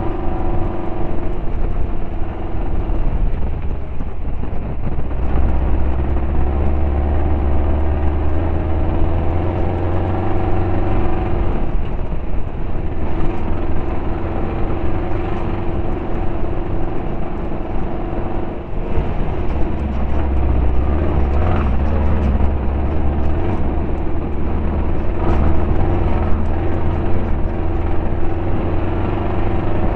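Air-cooled Volkswagen flat-four of a Class 5-1600 off-road race car running under load over a rough dirt trail, with scattered knocks and rattles. The engine is running on only three of its four cylinders.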